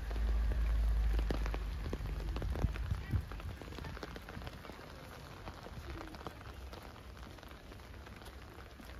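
Rain falling on wet paving, with many individual drops ticking close by. A low rumble sits under it for the first three seconds.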